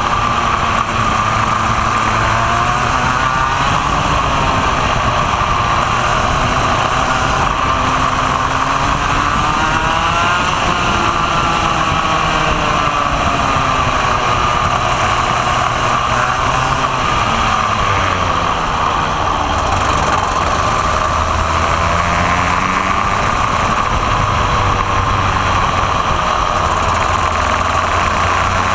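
Vortex ROK two-stroke kart engine racing at full load, heard from an onboard camera on the kart. The revs repeatedly climb on the straights and drop into the corners.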